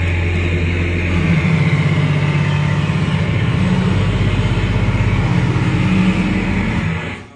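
Loud, droning, noisy live music from an electric guitar and a table of electronics and effects pedals: a dense wall of sound over a strong low drone. It cuts off abruptly near the end as the piece stops.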